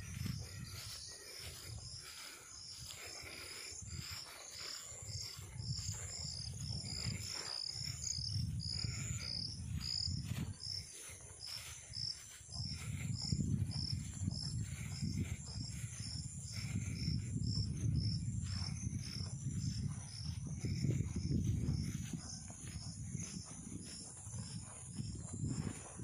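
Insects chirping steadily in short high-pitched pulses, about two to three a second. A low rumbling swells and fades underneath, strongest in the second half.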